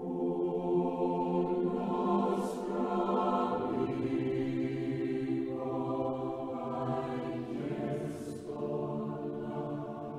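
Slow choral music: voices holding long chords that change every few seconds.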